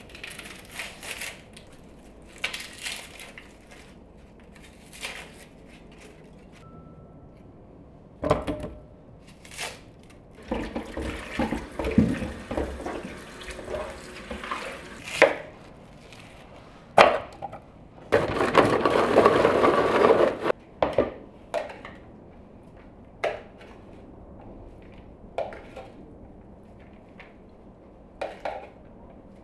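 Kitchen food-prep sounds: scattered knocks and clatter of bowls and utensils, and a stretch of running tap water while peeled onions are rinsed at the sink. Past halfway comes a loud noisy burst about two seconds long.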